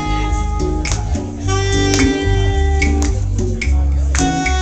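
Live band playing a song: strummed acoustic guitar, saxophone holding long notes, and percussion striking about once a second over a heavy low end.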